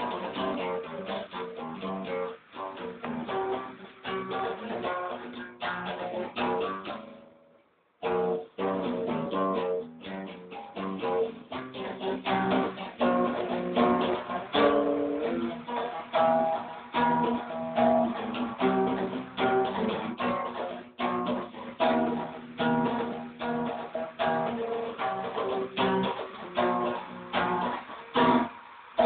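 Acoustic guitar being played: a steady run of plucked notes and chords, breaking off briefly about eight seconds in and then starting again.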